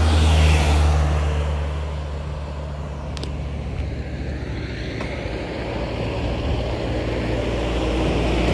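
Road traffic: a motor vehicle's engine hum passing close by, loudest about half a second in and fading, with another vehicle approaching near the end.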